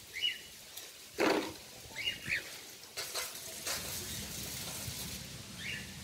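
Caged cockatiels giving short chirps every second or two, with one louder, fuller call a little over a second in. A hissing rustle runs through the middle couple of seconds.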